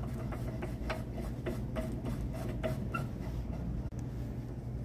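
Faint irregular clicks and ticks of a new adjustable leveling foot being screwed by hand, its threaded steel stud turning into the insert of a metal table leg, over a low steady hum.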